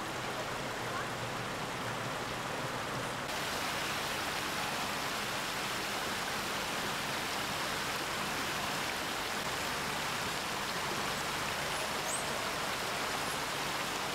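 Steady rushing noise that turns brighter and hissier suddenly about three seconds in, with a couple of faint high chirps near the end.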